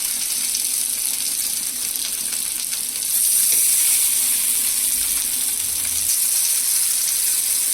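Masala-coated fish sizzling in hot oil on a flat dosa tawa griddle: a steady, high frying hiss with faint crackles that grows louder about three seconds in.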